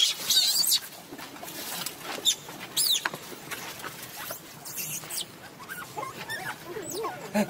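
Baby macaques giving several short, high-pitched squeals as they tussle. Dry leaves rustle and crackle underneath.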